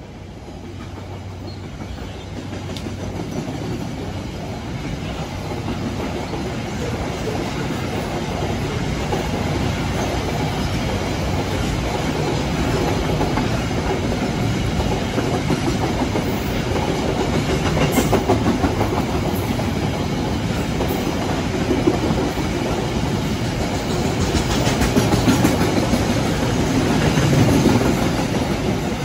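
A private coal freight train hauled by a CC 202 diesel-electric locomotive passing close by. Its rumble builds over the first several seconds, then the wagons run by steadily with wheels clacking over rail joints, loudest near the end.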